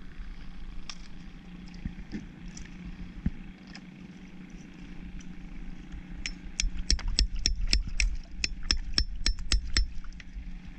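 A claw hammer tapping a metal prying tool wedged into a clump of oysters, working individual oysters loose from the clump. The taps come as a quick run of about twenty sharp, ringing metallic strikes, about five a second, starting about six seconds in and stopping just before the end.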